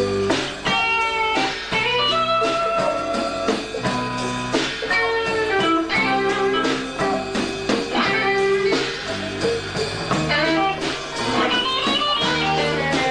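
Live rock band playing an instrumental passage: an electric guitar lead with bent, sliding notes over bass and drums.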